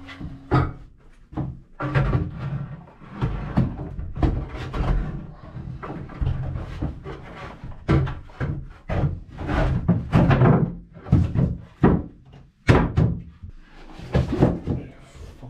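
Wooden boards being handled inside a boat hull: a run of irregular thunks, knocks and scrapes as a board is lifted and set against the timber frames.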